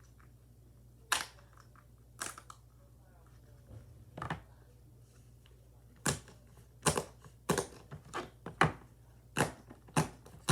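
Silicone pop-it fidget toy having its bubbles pressed: a few sharp single pops a second or two apart, then a steady run of about two pops a second over the last few seconds.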